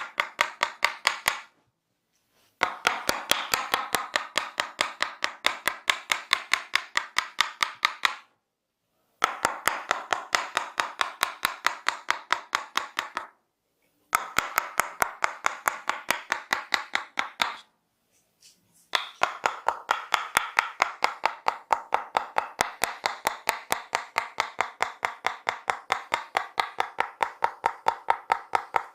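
Percussive massage: a barber's hands striking the client in rapid chopping or cupped-palm claps, about four strikes a second. The strikes come in runs broken by short pauses about 1.5, 8.5, 14 and 18 seconds in.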